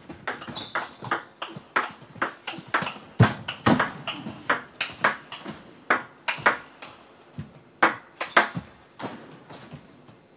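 Table tennis rally: the ball clicking off the rackets and bouncing on the table in quick alternation, two or three sharp clicks a second.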